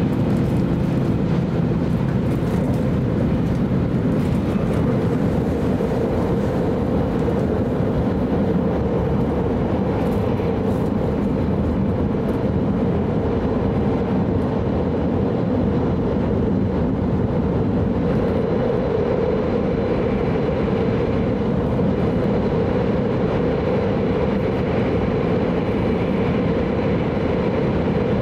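Steady running noise of an E5 series Shinkansen heard inside the passenger cabin: an even rumble and rush from the wheels and air, with no breaks or changes.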